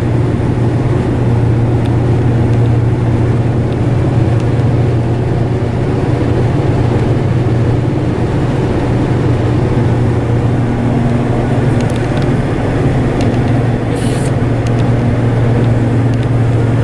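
Self-propelled forage harvester running steadily under load while chopping maize, a constant low engine and machine drone heard from inside its cab. There is a faint brief tick about 14 seconds in.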